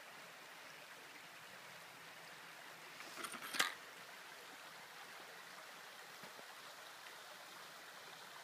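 Shallow rocky stream flowing: a faint, steady rush of water. A brief cluster of sharp clicks about three seconds in, the last one the loudest.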